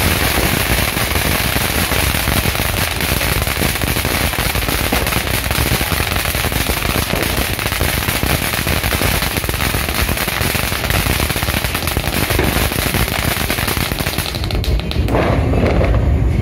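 Dragon Fireworks 'Dragon Fountain' ground fountain firework spraying sparks with a dense, continuous crackle of many fine pops. Its spray dies out near the end.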